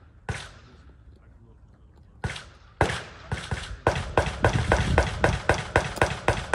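Gunshots at a shooting range with a short echo after each: a single shot, then a few spaced shots, then a fast string of about five shots a second lasting nearly three seconds.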